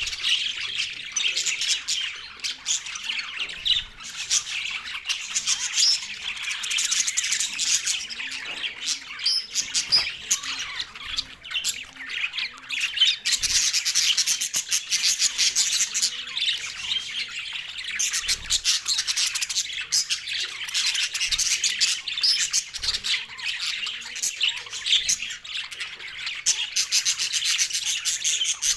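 A flock of budgerigars chattering and squawking continuously, a dense mix of warbles, chirps and sharp calls.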